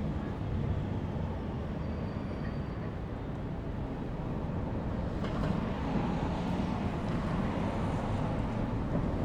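Busy city street ambience: a steady rumble of passing motor traffic.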